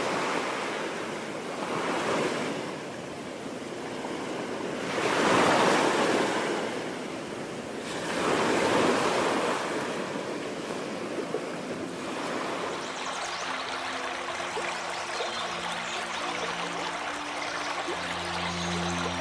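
Wind gusting through forest trees: a rushing noise that swells and dies away several times. About two-thirds of the way in, steady low tones and, near the end, high chirps come in over a softer hiss.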